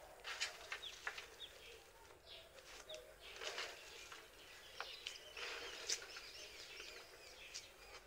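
Dry banana peels rustling and crackling as they are handled by hand on a sheet of iron, with birds chirping faintly.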